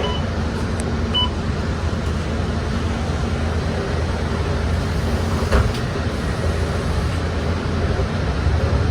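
Steady engine and road drone inside a moving bus, with two short high beeps near the start and a single sharp knock about five and a half seconds in.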